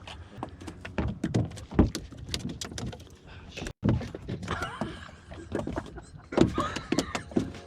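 Irregular knocks and thumps on a small fishing boat, with brief snatches of voices.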